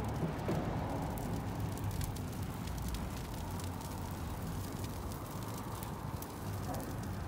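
Fire crackling as it burns the plastic insulation off bundles of thin automotive copper wire in a charcoal grill: many small sharp ticks over a steady low noise.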